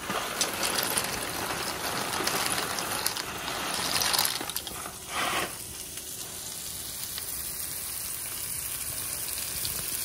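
Pot of water at a hard rolling boil, bubbling and hissing, with a brief louder rush about five seconds in. After that, a steadier, quieter hiss of cooking.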